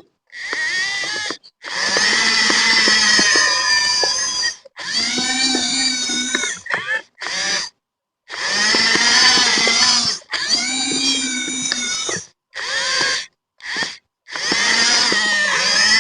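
Electric gear motors of an RC bulldozer whining as it runs, the pitch rising and falling with the throttle, in short stop-start bursts with brief clicks.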